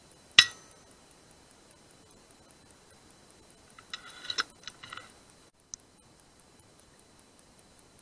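A single shot from an FX Impact MKII .177 pre-charged air rifle, heard as one sharp crack with a short fading tail. About four seconds later comes a quick run of metallic clicks and rattles.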